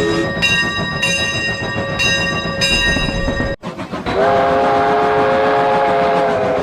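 Train sound effects cut together: first a high, ringing tone that pulses on and off for about three and a half seconds, then, after a sudden cut, a train's multi-note chime whistle sounded as one long steady chord.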